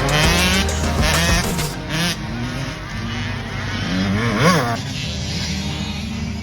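Dirt bike engine revving in a race, its pitch climbing through the first second, with a sharp rev up and back down about four and a half seconds in.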